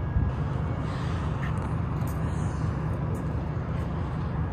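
Steady low outdoor rumble of urban background noise with no distinct event, a few faint clicks about two and three seconds in.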